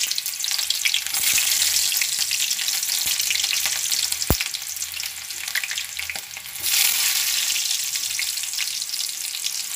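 Chopped onions sizzling and crackling in hot oil in a metal kadai, freshly added to the well-heated oil. The sizzle eases a little about six seconds in and swells again, and a single sharp tap sounds about four seconds in.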